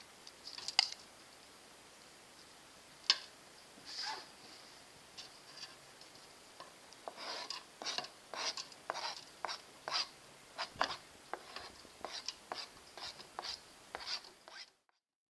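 A few sharp clinks of a spoon against a glass dish and a metal mixing bowl. Then comes a quick run of short scrapes, about two a second, as a knife pushes chopped vegetables and shredded cheese off a cutting board into the bowl.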